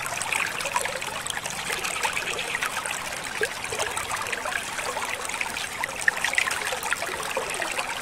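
Shallow river running over a stony, pebbly bed: a steady rush of water with many small gurgles and splashes.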